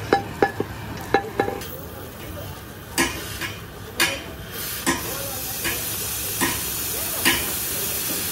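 Sharp metal-on-metal knocks: a quick cluster in the first second and a half, then about one a second. A steady hiss underneath grows louder near the end.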